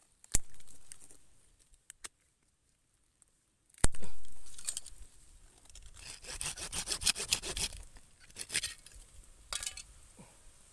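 Spade blade digging into soil and tree roots under a root ball: two sharp strikes, about half a second and four seconds in, then a run of rapid scraping, rasping strokes as the blade cuts and levers through the roots.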